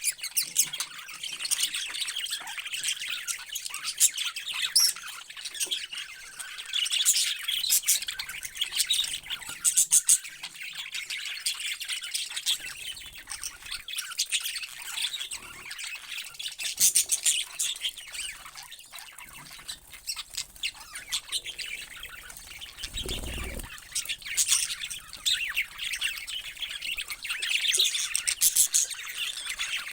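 A flock of parrots chirping and squawking, with many short high calls overlapping one another throughout.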